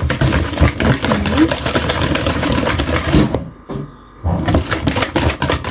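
Wire balloon whisk beating a runny egg, sugar and oil batter in a plastic mixing bowl: a fast, steady clatter of the wires against the bowl. The clatter drops away for under a second as the whisk is lifted out of the batter, then starts again.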